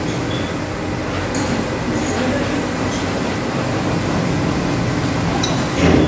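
Automatic carpet washing machine running: a steady low mechanical rumble with a few short metallic clinks, and a louder clatter near the end.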